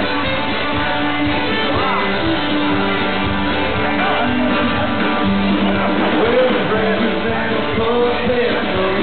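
Live red dirt country-rock band playing, with a fiddle bowing the lead over acoustic guitar and drums.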